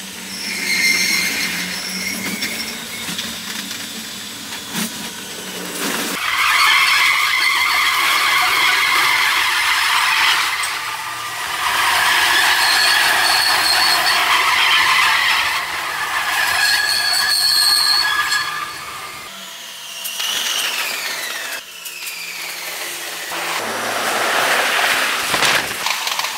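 Paris Métro train running through a tunnel, heard from inside the carriage: a loud running rumble and hiss with high-pitched wheel squeal coming and going, and a falling whine about twenty seconds in.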